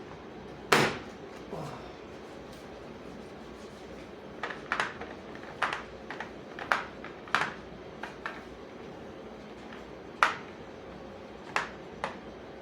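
Scattered sharp clicks and light knocks of hand tools from a DeWalt mechanics tool kit being picked up and set down, about a dozen in all, the loudest about a second in and another just after ten seconds.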